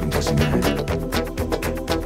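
Background music with held notes over a quick, steady percussive beat.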